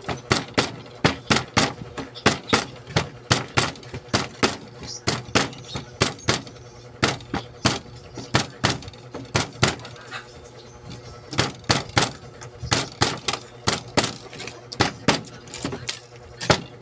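Rubber mallet tapping on the copper windings of an alternator stator being rewound: a quick run of sharp taps, about three a second, with a short pause a little past the middle and the taps stopping near the end.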